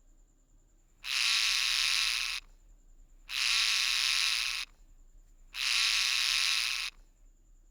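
Parrot squawking: three harsh, raspy screeches, each about a second and a half long, evenly spaced.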